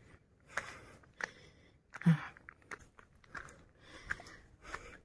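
Footsteps crunching on a dirt-and-stone forest trail, a step about every two-thirds of a second, with one louder step about two seconds in.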